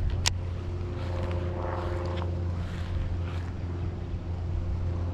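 Steady low drone of a distant motor with a few faint steady tones above it, and a single sharp click about a third of a second in.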